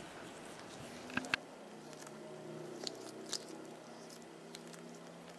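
Small slimy jelly squishy ball squeezed and rolled between fingers, giving a few faint wet, sticky clicks and squelches over a faint steady background.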